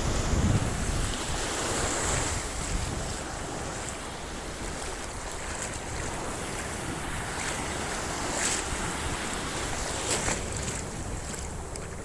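Sea surf washing ashore, with wind buffeting the microphone in low rumbles that are strongest at the start.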